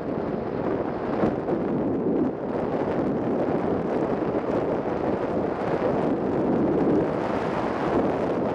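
Steady rush of airflow over the onboard camera microphone of a 3-metre Ka 8b radio-controlled model glider in flight, with no engine tone.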